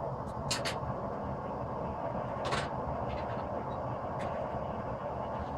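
Forge running with a steady rushing noise while a steel knife blank heats for drawing out, with a few light, irregular metallic clicks.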